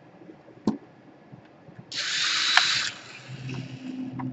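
Small electric screwdriver running in one short burst of about a second, about two seconds in, driving a screw back into a laptop case; a single light click comes just before.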